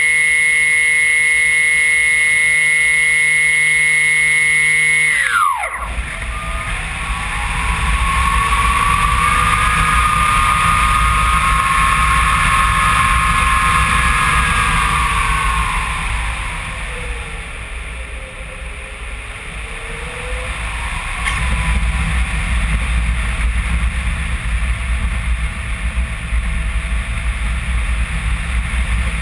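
A HobbyKing Phoenix glider's electric motor whines steadily and then shuts off about five seconds in, its pitch dropping quickly as it spins down. After that, wind rushes over the airframe as it glides, with a faint whistling tone that swells and fades.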